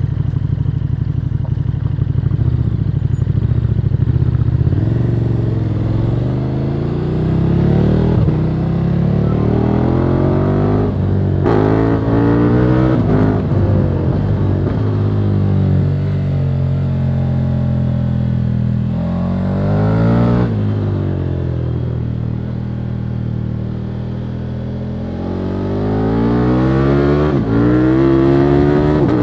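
KTM 1290 Super Duke R's 1301 cc V-twin through its stock exhaust, revving up and shifting up again and again, with a short break in the engine note at each gear change. Past the middle it eases off and the revs fall, then it accelerates again near the end.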